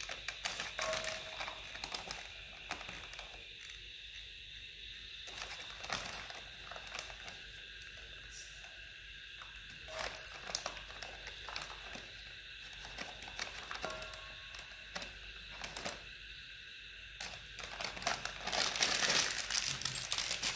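Flour being spooned out of a plastic packet into a stainless steel bowl: the packet crinkles and the steel spoon clicks and scrapes against the bowl in scattered short sounds, busiest near the end.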